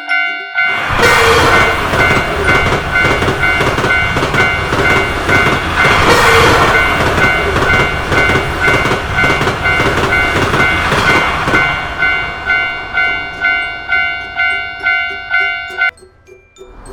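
Japanese level-crossing alarm clanging its "kan-kan" at about three strokes a second while a train runs over the crossing with a loud rumble, swelling about a second in and again about six seconds in. The bell and the train noise cut off suddenly near the end.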